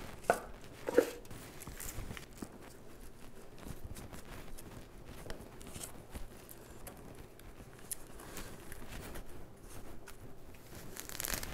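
Potting soil rustling and crumbling under hands, with light taps against old metal containers as amaryllis bulbs are set in and firmed. Two sharper knocks come in the first second.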